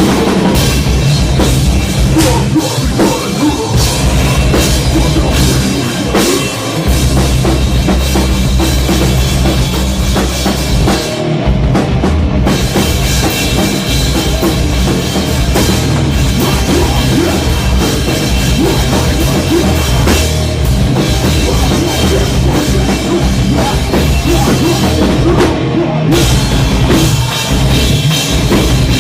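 Loud rock music from a band, with a drum kit driving it.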